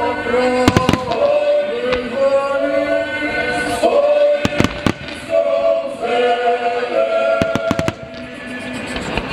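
Firework shells bursting in a scatter of sharp bangs, some in quick pairs and clusters, over loud choral music with long held notes.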